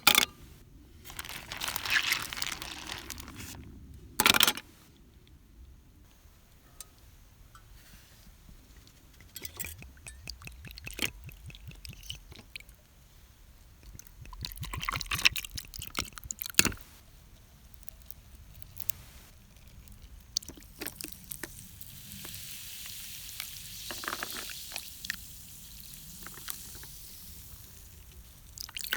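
Liquid being poured, with scattered clicks and knocks of containers and utensils being handled; a longer soft pour or hiss comes about three-quarters of the way through.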